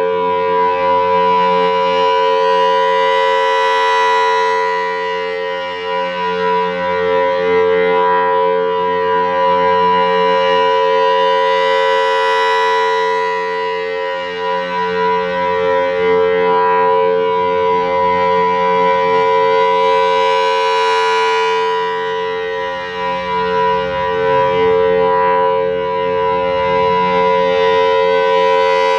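Federal Signal Thunderbolt 1000 blower-fed rotating warning siren sounding its steady full-alert tone, a chord of several steady pitches held without rising or falling. The sound swells and fades about every eight seconds as the rotating horn sweeps past.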